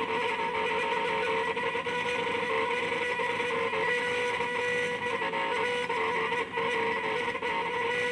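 Stepper motors from salvaged DVD drives whining as a homemade Arduino CNC plotter moves its axes: a steady, buzzy tone that shifts pitch in small steps as the moves change.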